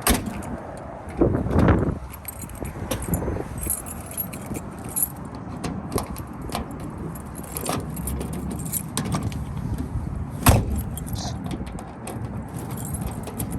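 Keys jangling, with scattered clicks and knocks from handling the car. There is one loud, sharp thud about ten and a half seconds in, a car door being shut.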